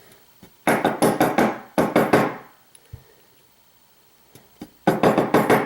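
Two bursts of quick, sharp metal taps and clicks, one about a second in and another near the end, from a pin-tumbler challenge lock being worked on with tools while its pin springs are removed.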